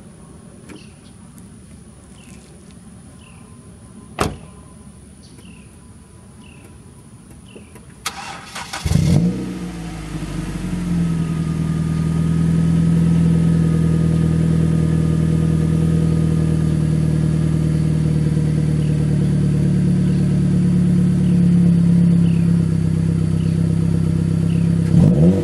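A 2007 Ford Focus's 2.0 L Duratec four-cylinder with an aftermarket exhaust is cranked by the starter and catches about eight to nine seconds in. It flares briefly, then settles into a steady idle, and gives a short rev near the end. Before the start there is only faint repeated high chirping and a single sharp click about four seconds in.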